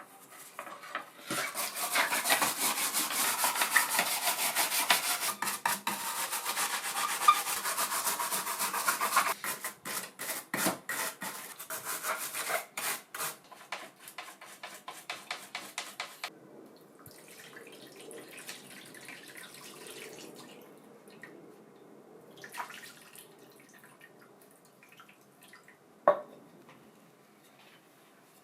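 Hand rubbing or sanding strokes on a drill part: fast and continuous for about eight seconds, then slower, separate strokes that stop about sixteen seconds in. Faint rubbing follows, then a click and a single sharp knock.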